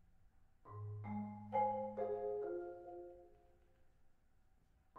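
Mallet percussion quartet on marimbas and vibraphone: a low held note comes in about a second in, then a cluster of struck notes rings out together and dies away, leaving a quiet pause near the end.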